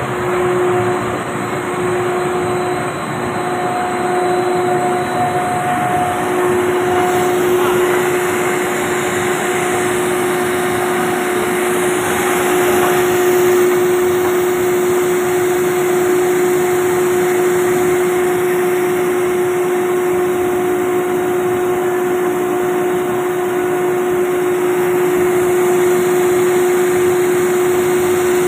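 Steady running of a WPC decking single-screw extrusion line: a constant machine hum with a steady mid-pitched tone over a dense rushing noise.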